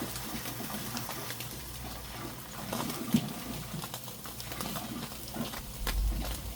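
Food sizzling and crackling on a charcoal grill, with irregular sharp clicks over a low hum.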